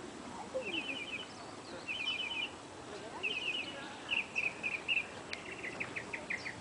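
Small birds chirping in about five short bursts of quick high notes, each burst a rapid run of three to six notes, ending in a faster string of short chirps.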